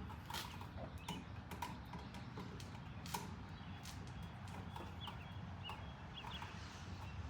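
Irregular light clicks and taps of hand work on an electrical outlet and its wiring, over a steady low hum.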